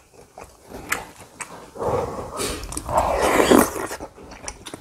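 Close-up chewing and mouth noises as a mouthful of rice and braised radish is eaten, loudest from about two seconds in, with a few light clicks of chopsticks and a spoon.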